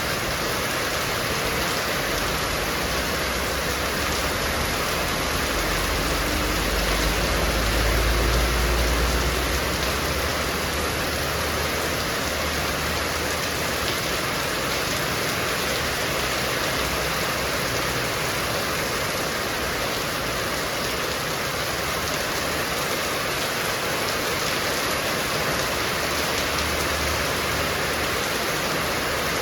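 Heavy rain falling steadily, a dense even hiss. A low rumble of wind swells for a few seconds about a quarter of the way in, then dies back.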